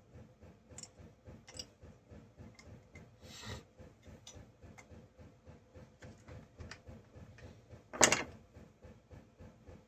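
Chainsaw parts and hand tools handled during disassembly: scattered light clicks, a short scrape about three and a half seconds in, and a sharp clatter about eight seconds in, the loudest sound.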